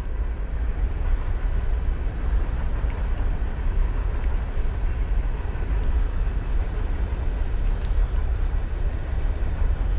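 Steady low rumble of wind buffeting the microphone, with a constant outdoor hiss behind it.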